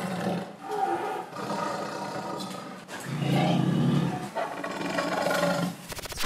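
A leopard roaring and snarling in repeated bursts as it attacks a pickup truck, ending in a quick run of digital glitch clicks.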